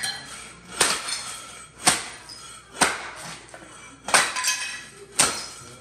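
Hammer blows on hard material: five sharp strikes about a second apart, each with a short clinking ring.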